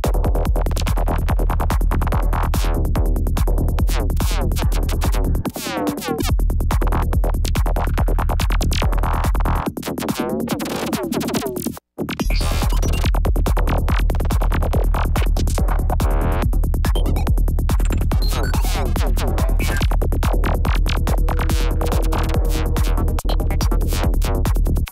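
Psytrance in a DJ set: a fast, steady kick drum under rolling bass and synth lines. The bass and kick drop out briefly twice, and the music cuts out for an instant about twelve seconds in.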